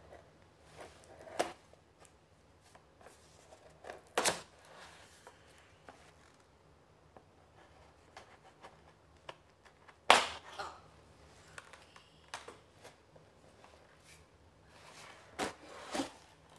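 Scissors cutting the packing tape on a cardboard box, then the box being handled: scattered knocks, scrapes and rustles of cardboard. The loudest is a sharp knock about ten seconds in, and two more come near the end.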